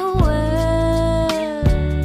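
Background song with a singer holding one long note over bass and drums.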